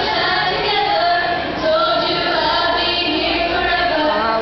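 A group of girls singing together into handheld microphones, holding long notes.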